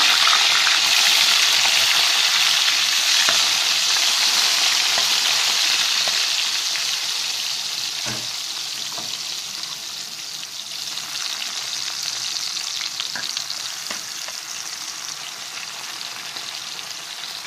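Eggplant batons frying in hot oil in a frying pan: a steady sizzle with scattered small crackles, loudest at first and easing off to a quieter sizzle through the middle.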